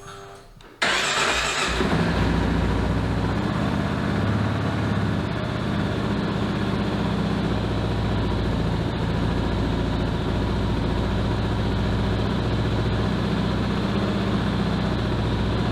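2022 Kawasaki KLR 650's single-cylinder engine starting about a second in, then idling steadily.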